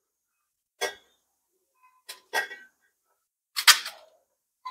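A stainless-steel bowl giving a few light clinks and knocks as dry gram-flour mix is worked by hand in it: about four short sounds, two close together near the middle, quiet in between.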